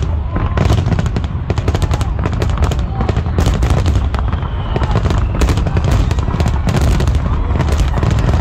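Fireworks display: a rapid, unbroken barrage of bangs and crackling over a steady low rumble.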